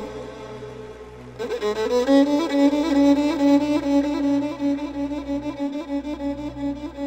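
Solo violin playing a slow melody with wide vibrato over a steady low drone. It dips quieter for about a second, then a new phrase slides up into a long held note.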